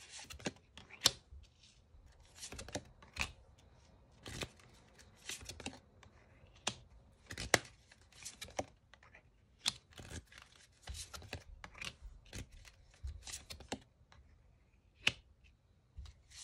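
Tarot cards being shuffled and laid out on a table: irregular sharp snaps and short rustles of card stock, about one or two a second, a few louder slaps among them.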